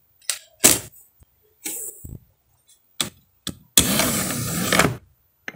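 Plastic tray of a desktop DVD-ROM drive being handled by hand: a few short clicks and knocks, then, about four seconds in, a second-long sliding rattle as the tray is pushed shut, with a small click near the end.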